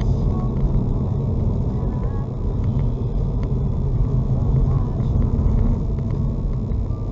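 Car driving at steady speed, heard from inside the cabin: a continuous low rumble of engine and tyre noise on the road surface.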